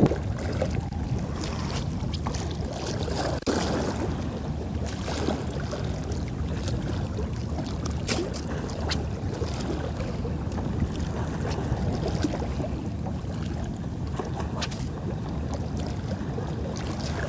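Steady low rumble of wind on the microphone and water sounds over open water, with a few faint ticks scattered through.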